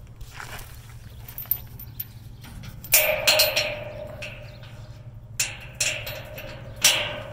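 Metal door chain clanking and rattling against the eyelet bracket of a small steel roll-off trash container, the container's steel body ringing after each knock. A cluster of clanks comes about three seconds in and another cluster near the end.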